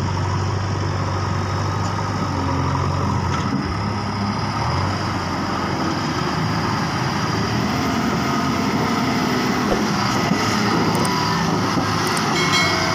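Diesel engine of a loaded tipper truck running as the truck drives along a dirt track and passes close by; the engine note shifts a few seconds in as it moves off.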